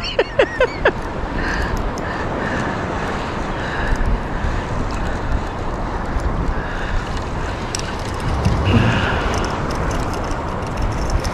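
Wind buffeting the microphone over the wash of shallow surf water, a steady rushing noise. It opens with a few quick excited vocal bursts from the angler in the first second.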